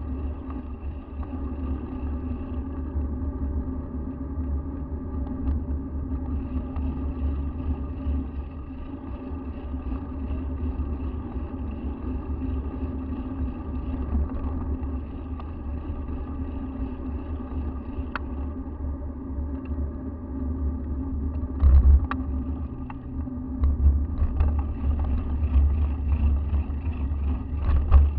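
Riding noise picked up by a bicycle-mounted action camera: steady low wind-and-road rumble with a constant hum over it. A few sharp knocks and rattles come about two-thirds of the way in and again near the end, as the bike jolts over the surface.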